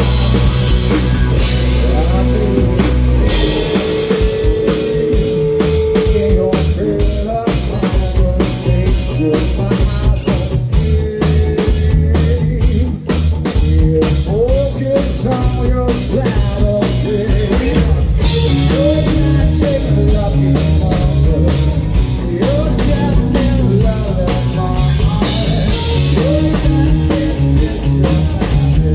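Live 90s grunge rock band playing a loud song: a drum kit, electric guitars and bass guitar, with a man singing lead vocals over the PA.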